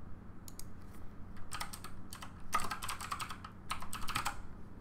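Computer keyboard typing in several quick runs of keystrokes, the longest and loudest about two and a half to four and a half seconds in.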